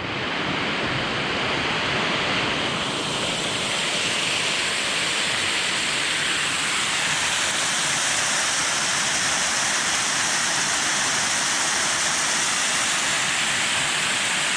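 Waterfall rushing: a loud, steady roar of falling water with no let-up.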